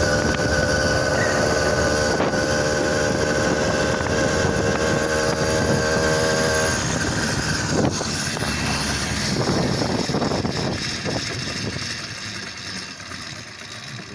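A 100cc two-stroke motorized-bicycle engine running on a 72 main jet, its exhaust fairly quiet with the muffler's inner tube cut out and the bottom cap on. It holds a steady note, which breaks off about seven seconds in. The sound then fades over the last few seconds.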